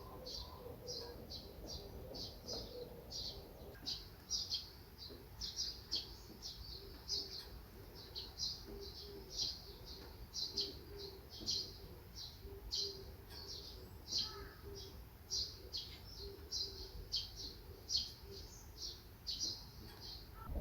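Small birds chirping: a steady run of short, high chirps, several a second.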